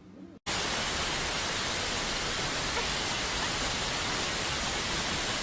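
Loud, steady static hiss like white noise, switching on abruptly about half a second in and holding level, with no pitch or rhythm in it.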